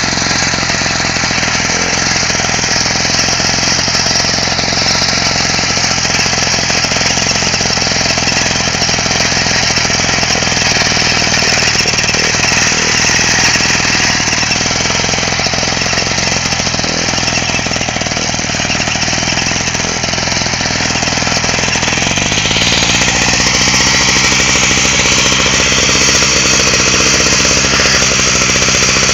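Walk-behind mower's Rotax engine running steadily under load as the machine cuts through tall grass, with a slight shift in tone about 22 seconds in.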